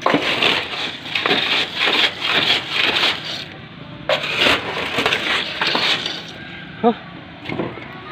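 A broom and stick scraping and crunching dried leaves and packed dirt out of a galvanised metal roof gutter, in a quick series of scratchy strokes that grow sparser and quieter after about six seconds.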